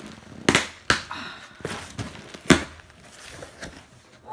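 Cardboard shipping box being pulled and torn open by hand: several sharp rips and snaps of cardboard, the loudest in the first two and a half seconds.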